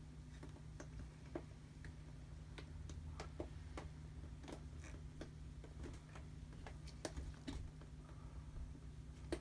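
Faint, irregular small ticks and clicks, one or two a second, from a stretched canvas coated in wet acrylic paint as it is tilted and flexed by hand, over a steady low hum.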